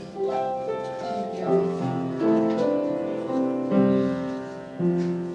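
Slow, soft piano or keyboard music: sustained chords that change every second or so.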